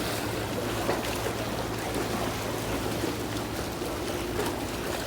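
Seawater washing and trickling along the shoreline, with a faint steady low hum underneath.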